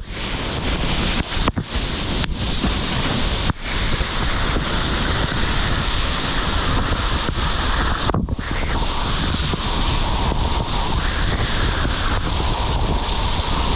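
Whitewater of a river rapid rushing and splashing around a kayak, loud and continuous, with the sound dipping out briefly a few times.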